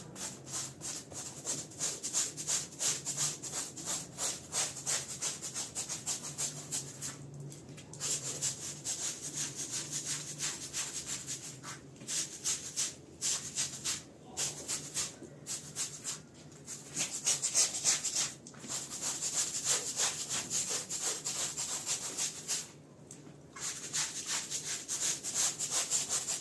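A stiff brush scrubbing a wet, dirty rug in quick back-and-forth strokes, several a second, with a few short pauses, stopping abruptly at the end.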